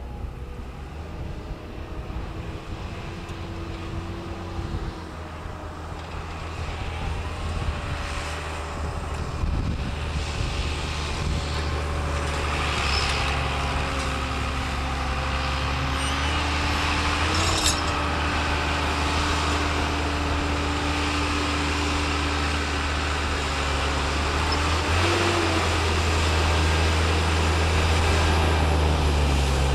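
Massey Ferguson 7495 tractor's six-cylinder diesel engine running steadily under plough load, a low drone that grows steadily louder.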